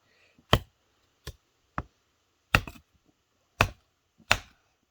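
A hatchet chopping wood: six sharp strikes at uneven intervals, a couple followed by a short clatter.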